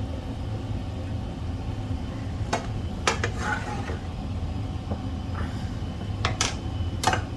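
A few light clinks and taps of a utensil against a dish, about five in all: two near the middle and three close together near the end. A steady low hum runs underneath.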